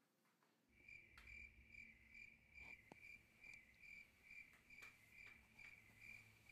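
Cricket chirping: a faint, steady chirp repeated evenly about two to three times a second, starting about a second in. A few faint knocks are heard among the chirps.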